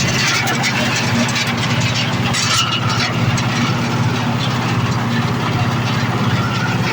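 Areca nut peeling machine running with a steady drone from its motor, overlaid by a constant scatter of clicks and rattles.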